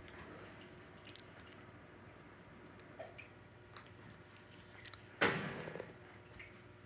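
Scottish terrier puppy chewing and mouthing a toy, with small scattered clicks and rustles. About five seconds in there is one loud, sudden clatter that dies away in under a second.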